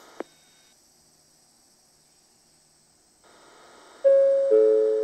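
Near silence for about three seconds, then a station PA chime: two electronic bell-like notes, the higher first and a lower one half a second later, ringing out and fading slowly. The chime opens an advance announcement of the next arriving train.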